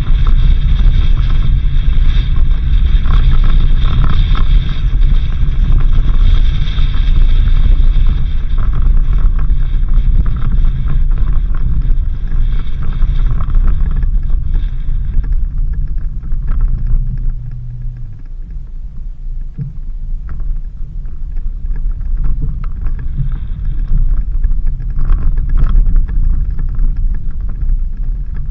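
Suzuki Jimny driving on a dirt road: a steady low rumble of engine and tyres, with wind buffeting the microphone. It eases off for a few seconds past the middle, then picks up again.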